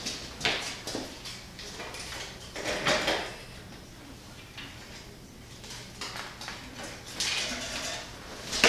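Scattered light clinks, rattles and rustling as hands work at a bicycle's front wheel hub and fork, with a sharp click near the end.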